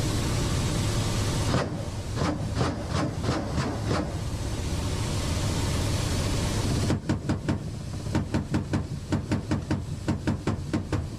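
Helicopter flying close by: a steady low drone under rushing noise, broken by two runs of rapid sharp cracks, the first starting about a second and a half in and lasting a couple of seconds, the second from about seven seconds in until near the end, about five a second.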